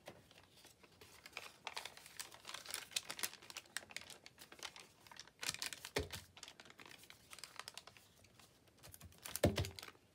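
Crinkled cash register paper rustling and crackling as hands open it out, press it flat and scrunch it up. There are two heavier thumps, one about halfway through and a louder one near the end.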